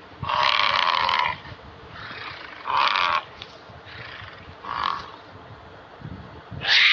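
Bison calling in four separate grunting bellows: a long one about half a second in, shorter ones around three and five seconds, and the loudest near the end, falling in pitch.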